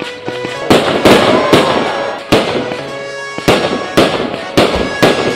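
Fireworks going off in a rapid barrage: a string of sharp bangs, roughly two a second, with crackling between them. Music plays faintly underneath.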